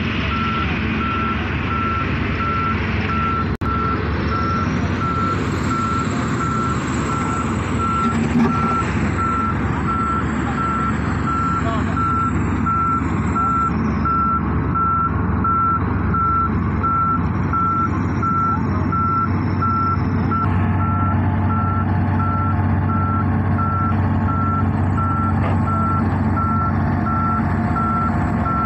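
A reversing alarm beeping at one steady pitch, evenly repeated, over the low, steady drone of heavy diesel construction machinery engines.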